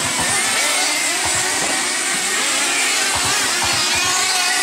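Several 1/10-scale radio-controlled dirt oval race cars going round the track, their motors whining together. The whines rise and fall in pitch as the cars speed up and slow down.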